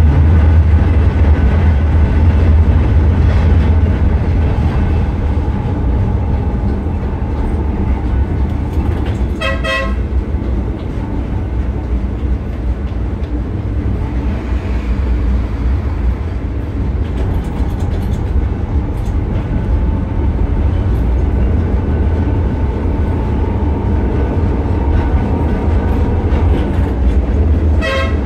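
Blackpool Balloon 700 double-deck heritage tram running along the track, heard from the driver's cab: a steady low rumble of motors and wheels on rail. A short warning toot sounds twice, about ten seconds in and again near the end.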